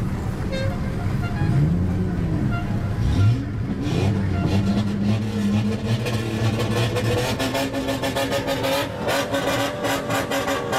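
Modified car exhausts revving: the engine note sweeps up and down a couple of times two to three seconds in, then settles into a steady drone, with a run of rapid sharp pops near the end.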